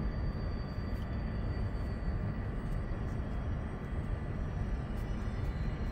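Steady low rumble and hiss of a large indoor sports hall's background noise, with faint steady high hums and a few faint clicks.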